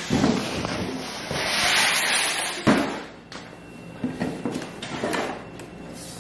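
Cardboard shipping box and a plywood cover panel being handled as the box is opened. There is a stretch of rough scraping and sliding, a sharp knock about two and a half seconds in, then a few lighter knocks.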